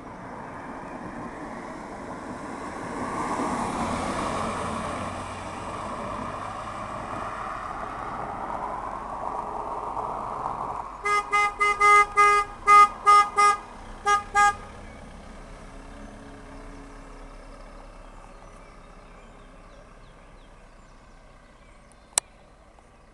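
A motorhome's horn tooting a rapid string of about a dozen short beeps in two groups as it passes, over the noise of the passing vehicle, which swells and fades. A single sharp click near the end.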